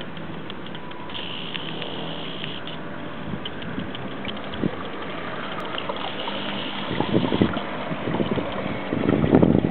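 A model tugboat's single Torpedo 850 electric motor and four-blade propeller running with a steady mechanical whirring and rattle. It grows louder and rougher in the last few seconds as the boat passes close.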